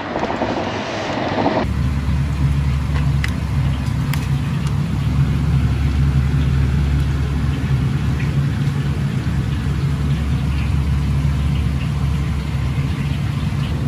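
Brief wind and road noise, then from about a second and a half in a steady low machine hum with a few faint clicks.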